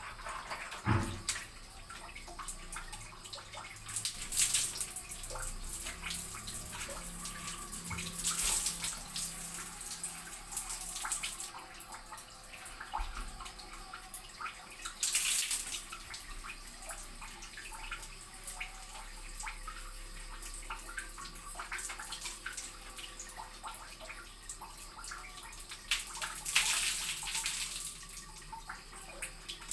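Water poured from a plastic mug over lathered hair, splashing down in several pours a few seconds apart, with quieter wet handling between them.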